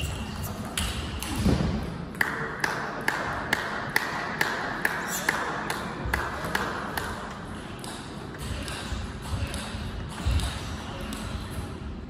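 Plastic table tennis ball clicking sharply off bats and table in a run of ticks about two a second, which fades out about seven seconds in.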